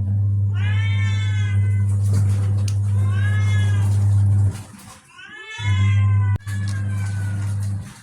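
A domestic cat meowing repeatedly: three or four long, drawn-out meows, one rising sharply in pitch. A loud, steady low hum runs underneath and cuts out twice.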